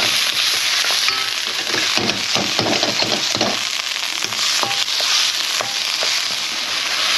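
Diced chicken breast sizzling steadily in a little hot oil in a wok as it browns, with a wooden spatula scraping and knocking lightly against the pan as the pieces are stirred.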